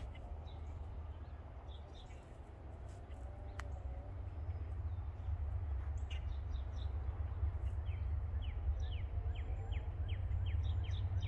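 Songbirds chirping, with a run of quick falling notes near the end, over a low rumble that grows steadily louder as an approaching freight train draws near.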